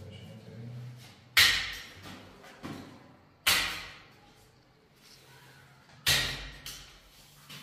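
Three loud, sudden sharp sounds about two and a half seconds apart, each fading away over about half a second, with fainter ones in between.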